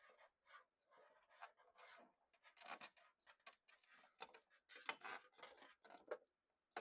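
Faint, scattered clicks and rubbing of parts being handled and fitted back onto a copier's document feeder.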